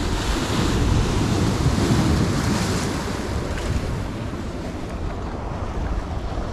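Surf breaking and washing over a rocky shore, with a low rumble of wind on the microphone.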